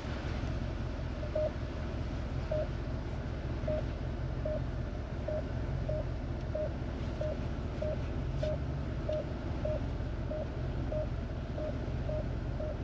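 Ram 1500 pickup's rear parking-sensor beeping, a short tone repeating about every 0.6 seconds and coming a little faster near the end, as the truck reverses toward the trailer hitch. Under it runs the steady low hum of the truck's Hemi V8 engine.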